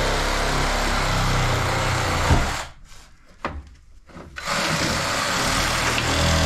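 A steady machine noise with a low hum. A sharp click comes a little over two seconds in, the noise cuts out for about two seconds with a knock in the gap, and then it starts up again.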